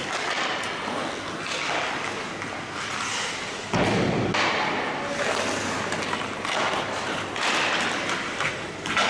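Ice hockey skate blades scraping and hissing on the ice, with a loud thud about four seconds in and a sharp knock near the end.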